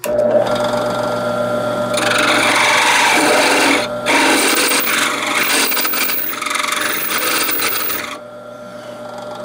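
Drill press running with a 5/16-inch bit cutting a shallow step into the end of a Pietta 1860 Army revolver's steel loading rammer held in a vise. A harsh scraping cut starts about two seconds in and lasts until about eight, easing briefly near four seconds, over the steady hum of the drill press, which runs on alone near the end.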